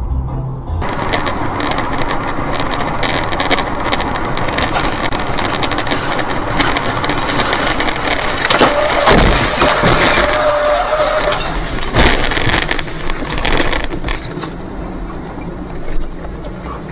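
Dash cam sound from a car driving on a wet highway: loud, steady road and wind noise, broken by many sharp knocks and cracks. The hardest hits come about nine and twelve seconds in.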